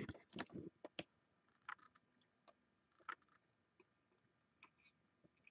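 Near silence broken by a few faint, scattered clicks: a sharp one about a second in, then softer ones spaced irregularly.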